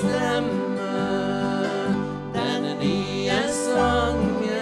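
A man and a woman singing a Norwegian Christian song together, accompanied by accordion, strummed acoustic guitar and piano. A low bass comes in near the end.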